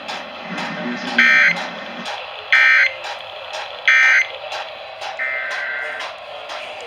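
Emergency Alert System end-of-message signal: three short, loud, buzzy data bursts, about a second and a half apart, marking the close of the alert. Background music plays under them.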